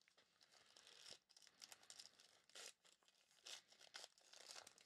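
Faint crinkling and tearing of a gold foil trading-card pack wrapper being ripped open by hand, in short scattered rustles.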